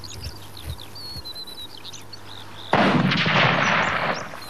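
Birds chirping, then about three seconds in a single sudden, loud gunshot from a hunter's gun, its blast lasting over a second before it fades.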